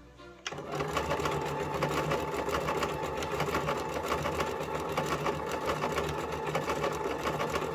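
Domestic sewing machine starting about half a second in and running steadily at speed, sewing a decorative cross-stitch hem.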